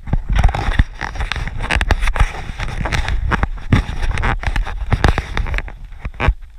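A trail runner's footfalls on a dirt forest path, quick thuds two to three a second, with a low rumble of wind on the microphone.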